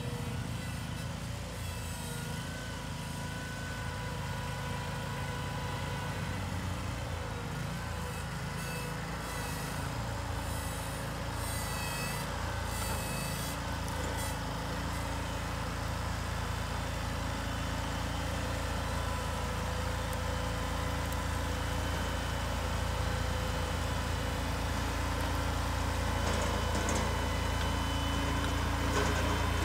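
Ride-on slope mower's engine running steadily while cutting dry, long grass on a hillside, growing gradually louder as the machine comes nearer.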